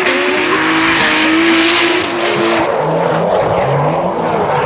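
Drift car engine held at a high, near-steady pitch while drifting, then from about halfway dropping lower and rising again in repeated short steps as the throttle is worked. A continuous hiss of tyre smoke and skidding runs underneath.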